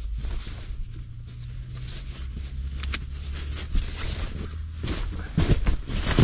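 Rustling and knocking as camping gear is handled inside a tent: a folding foam sleeping pad shifted about. Scattered sharp clicks sit over a low steady rumble, with heavier thumps near the end.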